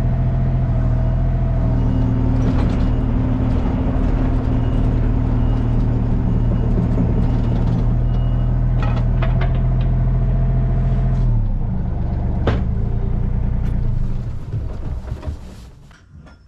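A heavy engine running steadily, then winding down and stopping about twelve seconds in, with the sound fading out over the next few seconds; a few sharp knocks along the way.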